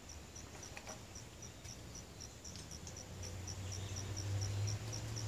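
Cricket chirping steadily, about two to three high chirps a second. From about three seconds in, a low steady hum grows louder beneath it.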